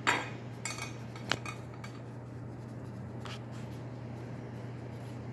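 Pen writing on paper, with a few light clicks and taps, the sharpest at the very start and about a second in, over a steady low room hum.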